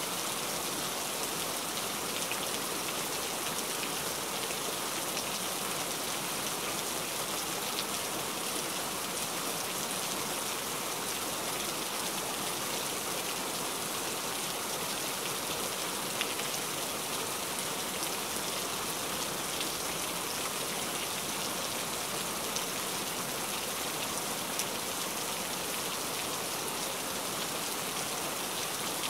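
Heavy rain falling steadily, an even hiss with a few sharper drop hits here and there.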